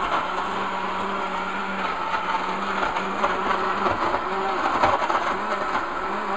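Krups KB790 blender running at a steady pitch, its glass jar churning frozen fruit and leafy greens into a smoothie; not overly loud.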